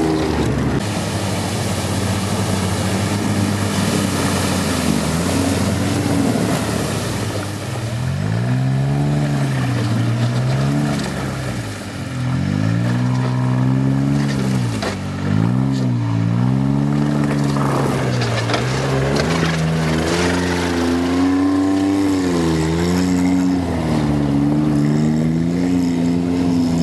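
Engine of a Tinger tracked amphibious ATV being driven over rough ground, its note rising and falling again and again as the throttle is worked.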